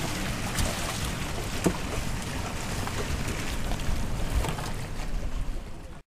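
Wind buffeting the microphone in a steady low rumble, over the wash of water around boats. The sound cuts off suddenly near the end.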